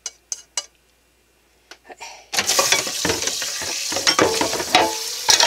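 A few light clicks, then about two seconds in a hot frying pan starts hissing and crackling loudly as water runs into it in the sink.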